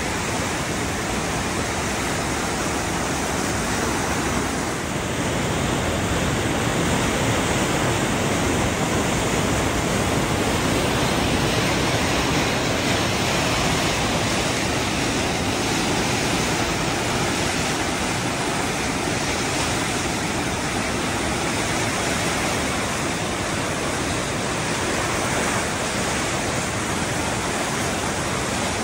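Glacier-fed mountain river rushing through a narrow marble gorge as white-water rapids, a steady, full roar of water with no breaks.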